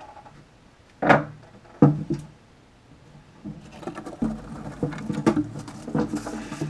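Bearded dragon leaving its rock and scrambling over dry wood-chip bedding in a glass terrarium. There are two sharp knocks about a second in, then a run of light scratchy clicks and rustles.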